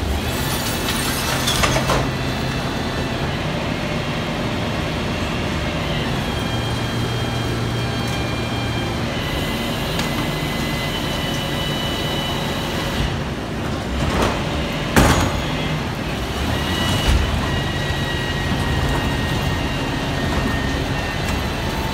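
Bucher rear-loader garbage truck running, its hydraulic bin lifter tipping a large wheelie bin into the hopper and lowering it again. Clanks from the bin and lifter come near the start and again about two-thirds of the way through.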